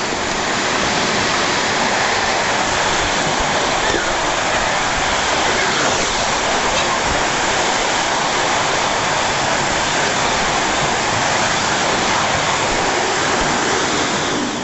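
Vacuum cleaner running steadily, its suction making an even, loud rushing noise.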